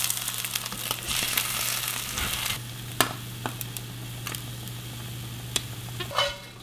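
Food sizzling as it fries in a pan, the hiss heavier for the first couple of seconds and then softer, over a steady low hum. A few sharp clicks come through in the second half.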